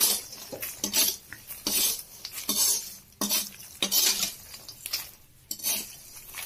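Steel spatula scraping and stirring a dry mix of fox nuts, peanuts and coconut in a kadhai as it roasts with turmeric, in repeated, irregular scraping strokes.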